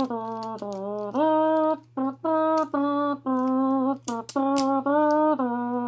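A person humming a tune in a run of short held notes that step up and down in pitch, with a few sharp clicks about four seconds in.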